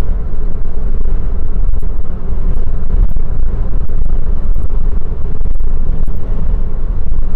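Steady loud low rumble of road and engine noise from a car moving at highway speed, heard from inside the cabin alongside a large truck.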